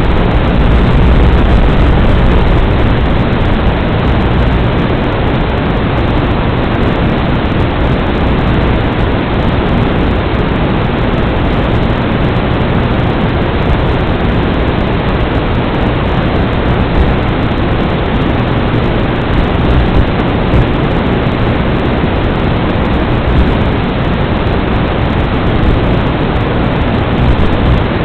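Steady, loud static hiss from an analog FPV video link's audio channel, with no motor tone heard.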